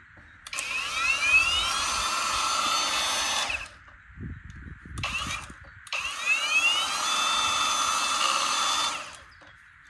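Musotica cordless angle grinder run twice with no load: each time a whine rises as the motor spins up, holds steady for about three seconds, then stops. A few low knocks come between the two runs.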